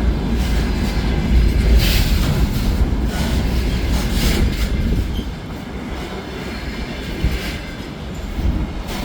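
Freight train behind a VL10U electric locomotive rolling past, a steady low rumble of wheels on rails with a few brief sharp wheel squeals; it gets a little quieter about halfway through.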